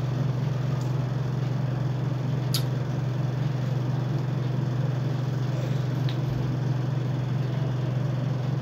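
A steady low hum, with faint short clicks about two and a half seconds in and again around six seconds.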